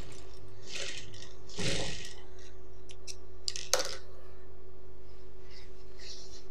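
Cloth being handled at a stopped industrial sewing machine: two soft rustles of fabric and a few sharp clicks about three to four seconds in, over a steady low hum.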